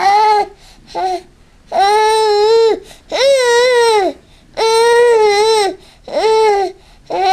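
A young child's voice making loud, drawn-out vowel calls, about six in a row, each up to a second long with a slight rise and fall in pitch and short pauses between them.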